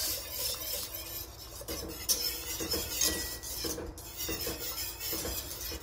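Wire whisk stirring a sauce thickened with tapioca starch in a stainless steel pot, the wires scraping and clinking against the pot in a steady rhythm of about two to three strokes a second.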